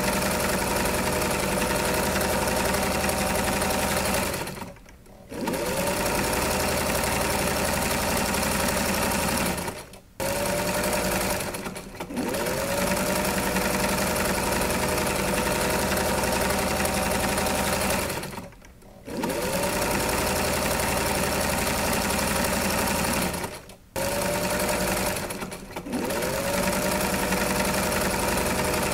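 Electric sewing machine running in bursts. It stops briefly about six times, and each time it starts again the motor spins up with a quick rising whine before settling into a steady run.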